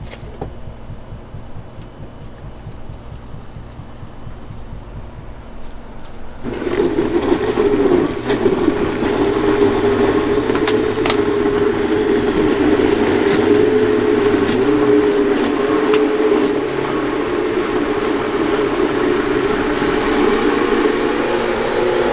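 Countertop blender motor starting up about six and a half seconds in and running steadily, churning fruit and liquid into juice. Before it starts there is only a low steady hum.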